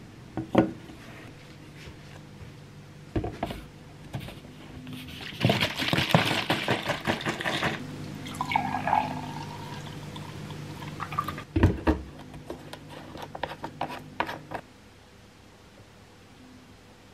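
Vegetable juice poured from a bottle into a tall drinking glass, a hissing pour of about two seconds in the middle that ends in a short rising gurgle as the glass fills. Sharp knocks of the glass and bottle being set down on the countertop come just after the start and again about twelve seconds in, with small clicks between.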